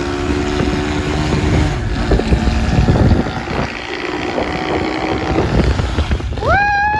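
Wind buffeting the microphone on a moving motorcycle, over the rumble of the running engine. A short rising pitched note comes near the end.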